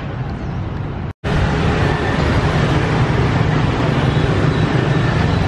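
Hanoi street traffic, a steady wash of motorbike and car engines with a low rumble. It cuts out for an instant about a second in and comes back louder.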